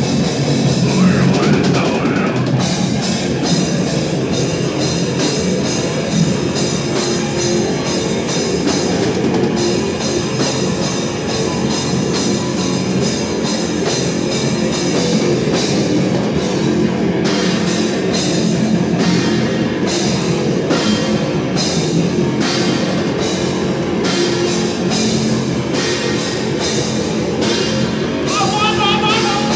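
A heavy metal band playing live and loud: distorted electric guitar, bass guitar and a drum kit, without a break.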